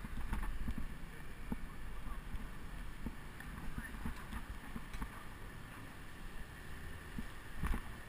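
Wind and road rumble on a GoPro action camera's microphone while cycling on city streets, with scattered short knocks and rattles.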